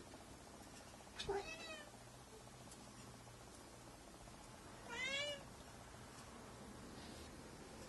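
A domestic cat meowing twice, a short call about a second in and another about five seconds in.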